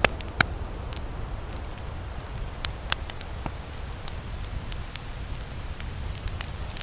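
Wood campfire crackling, with scattered sharp pops, the loudest at the start and about 3 seconds in, over a steady low rumble.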